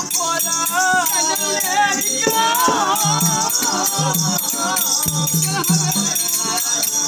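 Live Telugu folk-theatre music: a voice singing a wavering, ornamented melody over low drum beats and a steady metallic jingling rattle.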